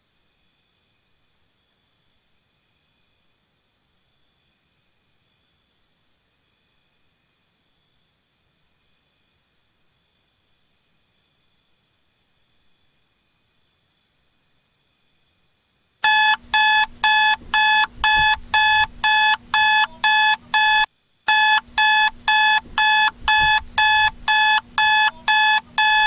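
Faint trilling of crickets, then, about sixteen seconds in, a loud electronic alarm-clock beeping starts as the countdown reaches zero, about two beeps a second with one short break partway through.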